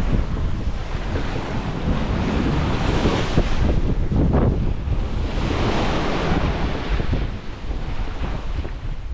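Wind buffeting the microphone over seawater rushing and splashing past a sailing yacht's hull, with louder rushes of water about three and six seconds in.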